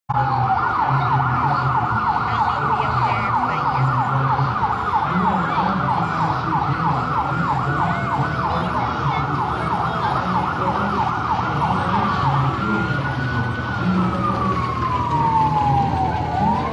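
Electronic siren on a parade vehicle sounding a rapid yelp, then about twelve seconds in changing to a slow wail that falls and rises again near the end.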